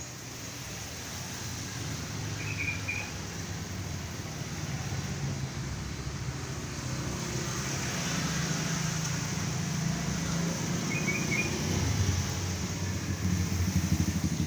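A motor vehicle engine running and growing steadily louder as it draws closer, with two short high chirps, one a few seconds in and one near the end.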